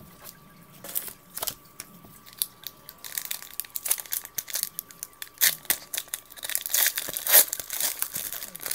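A 2011-12 NBA Hoops trading-card pack's wrapper being torn open and crinkled: a few scattered crackles at first, then dense, louder crinkling from about three seconds in, loudest near the end.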